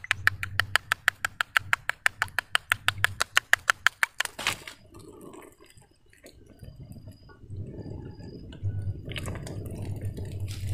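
Eggs being whisked in a bowl: a rapid, steady clicking of the utensil against the bowl that stops about four seconds in. A softer, steady noise follows in the second half.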